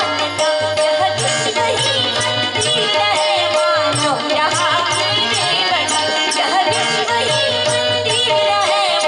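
Women's group singing a Hindi devotional bhajan with ornamented, wavering melody over a steady held instrumental drone and a regular percussion beat.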